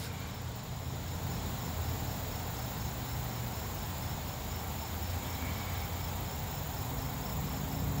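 Steady background calling of insects: an even, high-pitched pulsing trill that goes on without a break.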